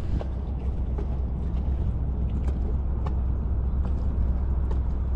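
Steady low rumble on open water, the kind of background that wind on the microphone or a distant boat engine gives, with a few faint scattered ticks as the fish and lure are handled over the kayak.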